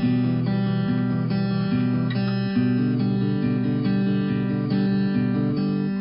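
Background music led by strummed acoustic guitar, its chords changing steadily.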